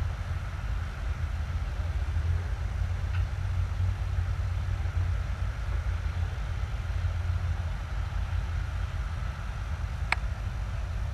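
Leopard 2A6 tank's MTU V12 diesel engine running at a steady deep rumble, with a faint steady whine above it. A sharp click about ten seconds in.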